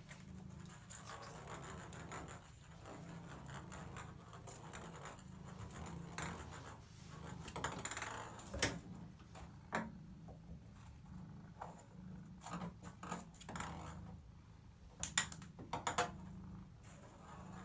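Ping pong ball clicking and rattling against a bathtub as a cat bats it about, with a cluster of sharp ticks near the end. A cat's steady low purring runs underneath.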